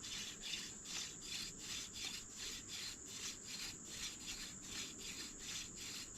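Hand drill fire-making: a dog fennel spindle twirled back and forth between the palms, its tip rubbing in the notch of a hickory fireboard. It makes an even rhythmic rubbing of about two to three strokes a second under light 'floating' pressure, with the friction already starting to make the board smoke.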